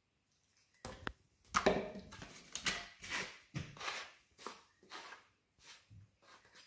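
Two plastic dough scrapers scraping and scooping dry flour and water in a plastic tub, mixing a stiff biga dough: short scratchy strokes about twice a second, starting about a second in.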